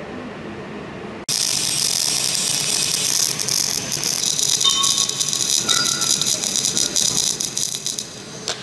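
Flux-cored (FCAW) wire-feed welding arc striking suddenly about a second in and crackling and sizzling steadily for several seconds, then stopping near the end, followed by a single click.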